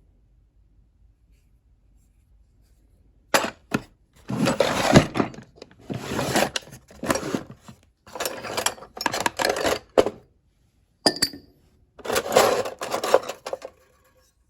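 Small metal tools clattering and clinking together as they are handled and moved about in a toolbox, in five or so bursts of rattling starting about three seconds in.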